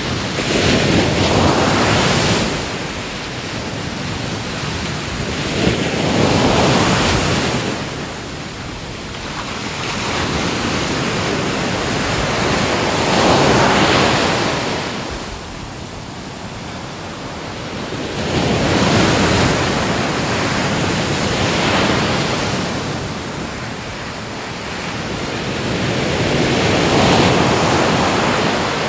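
Ocean waves breaking and washing up the shore, a rushing surge that swells and fades about every six or seven seconds, five times over.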